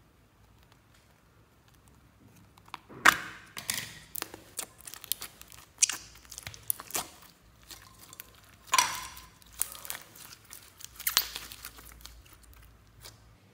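Blue slime with foam beads being poked, squeezed and pulled apart by fingers: sticky crackling, popping and squelching in irregular bursts, starting about three seconds in.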